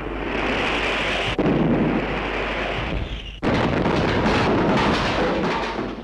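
Bomb explosions on an old film soundtrack. A loud rush of noise is broken by a sudden blast about a second and a half in, and a second, heavier blast about three and a half seconds in, with a dense rumble and crash running on after it.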